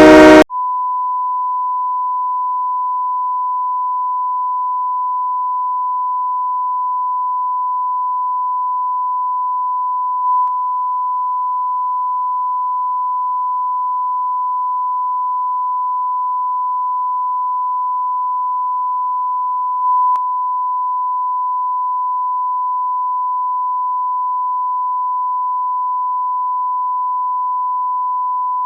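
A loud train horn blast cuts off in the first half-second. It is followed by a continuous, unwavering high-pitched electronic beep, a single pure tone like a censor bleep, broken only by two faint clicks about ten seconds apart.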